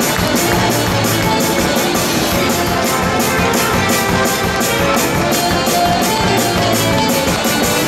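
Loud music with a fast, steady beat, about three or four beats a second.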